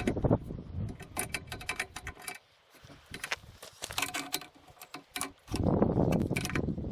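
Handling noise: a string of small metallic clicks and rattles from parts being moved. There is a louder rustling burst at the start and another about six seconds in.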